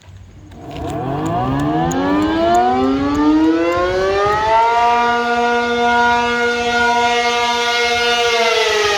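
ACA Penetrator-50 outdoor warning siren, with a 50 hp three-phase motor and an 8/12-port chopper, starting up. It winds up in a rising chord for about four seconds, holds steady at full pitch, then begins to fall near the end: the first wail of the Attack signal.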